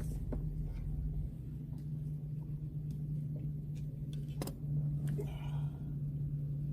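Steady low machine hum, with a few faint clicks and taps.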